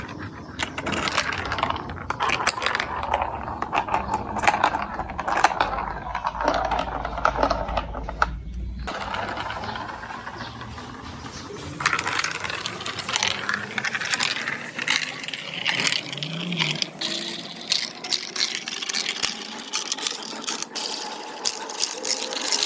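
Marbles rolling and clattering through a plastic building-block marble run: a continuous rattle of many small clicks and clacks, growing busier about twelve seconds in.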